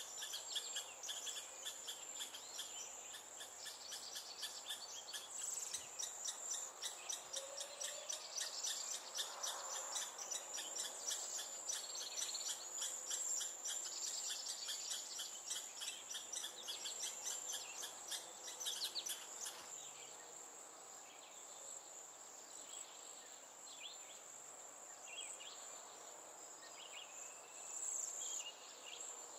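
Insects singing: a steady high-pitched buzz throughout, with a fast pulsed trill over it that stops about two-thirds of the way in. After that, scattered short chirps continue.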